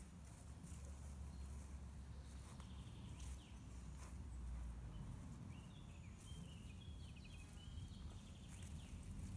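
Faint garden ambience: a low wind rumble on the microphone with scattered light clicks and rustles of plants being worked by hand, and a bird chirping briefly from about six seconds in.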